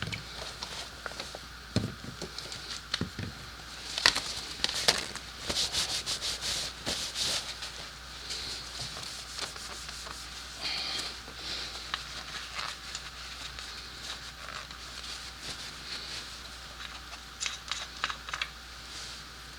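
Rubbing and scraping with scattered light clicks and knocks, the sounds of hands handling tools, parts and containers, busiest about a third of the way in.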